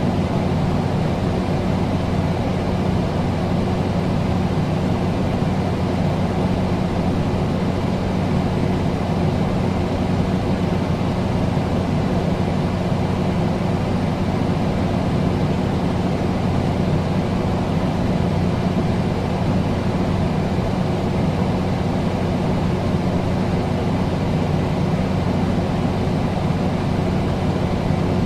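Air conditioner running steadily: a constant rush of air with a low, even hum, unchanging throughout.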